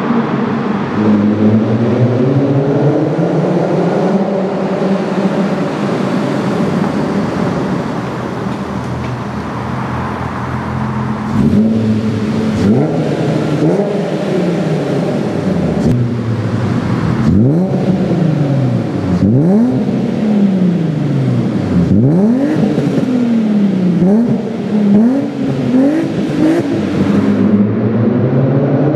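Audi A6 4B's reworked 2.8-litre 30-valve V6 running through a full 3-inch stainless exhaust with headers and race catalytic converters. For the first ten seconds or so its note slowly changes pitch. From about twelve seconds in the engine is blipped again and again, each rev rising sharply and dropping back, about ten times.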